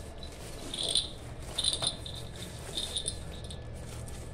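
A baby's rattle toy giving a few light, short jingles as it is handled and packed into a bag.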